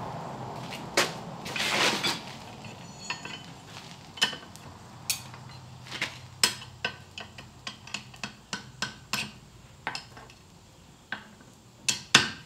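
Hammer striking a hot steel rod held in a pin bending jig on an anvil, bending it into a dinner bell's shape. Sharp metallic taps, irregular at about one or two a second, come faster near the end.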